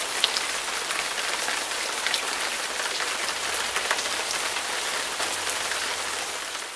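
Steady heavy rain: an even hiss dotted with small drop ticks, cutting off suddenly at the end.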